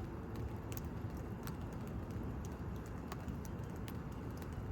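Faint, irregular light taps over a steady low background noise.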